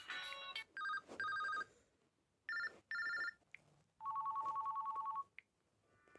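LG G2 mini smartphone's speaker playing a ringtone that imitates a telephone ring: two double rings, then a longer warbling trill. The last moment of a musical ringtone is heard just before it.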